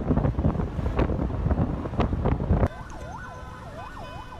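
Low rumbling noise with wind buffeting the microphone and scattered crackles, which cuts off abruptly a little over halfway through. Then an emergency vehicle siren in a fast wail, rising and falling about twice a second over a quieter background.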